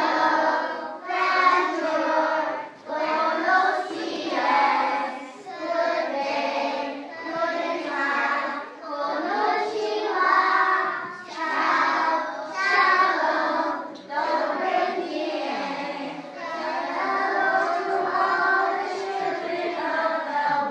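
A group of young children singing a song together in unison, in short phrases of a second or two with brief breaths between them.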